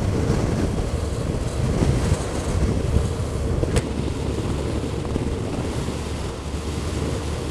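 Motorcycle riding along at steady speed, heard from a camera on the bike: wind rushing over the microphone on top of the engine's low running note.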